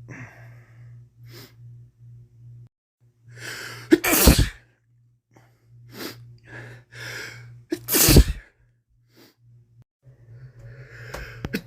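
A man with a head cold sneezing twice, about four seconds apart, each sneeze preceded by breathy build-up inhales, with sniffly breaths in between. A third sneeze builds up and breaks out right at the end.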